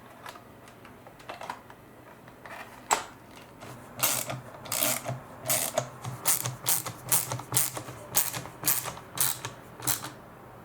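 A ratcheting screwdriver clicks in a steady run of strokes, two to three a second, as the Phillips screws holding the Dyson V10 battery pack are driven back in. A few scattered clicks from handling come before the run starts, about four seconds in.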